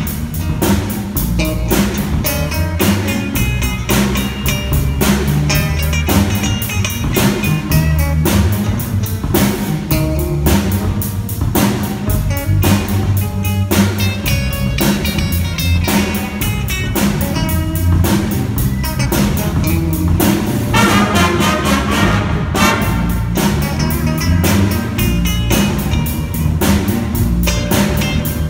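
School jazz band playing live, with drum kit, electric guitar, saxophones and brass. The drums keep a steady beat throughout, and a higher melodic line stands out briefly about 21 seconds in.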